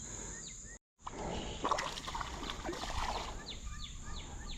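Insects droning steadily at a high pitch along a creek, with water sloshing in the middle. The recording cuts out completely for a moment about a second in, a camera glitch. Near the end comes a quick run of short, falling chirps, about three a second.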